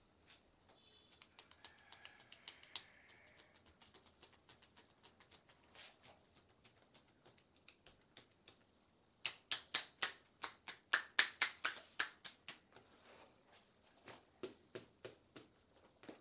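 Hand percussion massage: palms pressed together strike the client's arm in a fast run of sharp claps, about six a second for some three seconds, followed by a few lighter ones. Faint scattered taps come before it.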